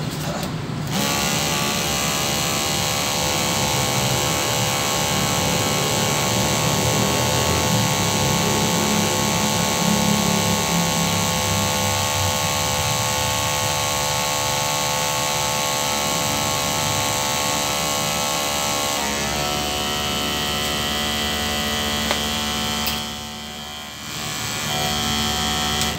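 Motorised pesticide sprayer pump running steadily. It starts about a second in, shifts in tone about two-thirds of the way through, drops away briefly near the end and then picks up again.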